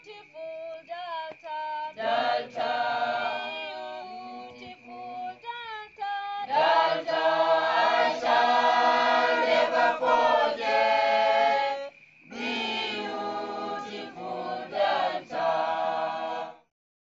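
A group of people singing together, several voices at once, with a short break partway through; the singing cuts off suddenly near the end.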